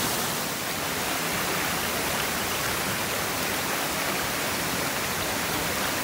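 Water from a waterfall and its rocky pool rushing and splashing over boulders: a steady, even rush.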